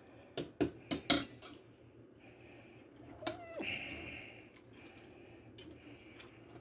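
A spatula knocking and scraping against a stainless steel saucepan of boiling macaroni as it is stirred: four quick clicks in the first second and a half, and one more a little after three seconds.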